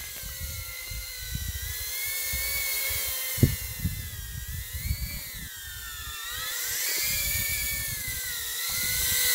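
Small FPV quadcopter drone in flight, its motors giving a high whine that rises and falls in pitch and grows louder near the end.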